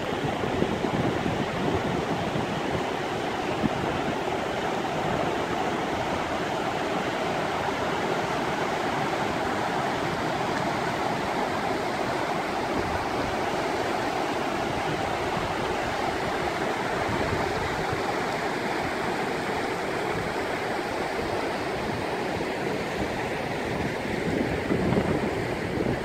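Shallow mountain river rushing over rocks and stones: a steady, even rush of flowing water.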